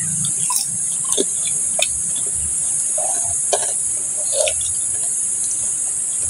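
Steady high-pitched drone of insects in chorus, unbroken throughout, with a few faint clicks and small knocks.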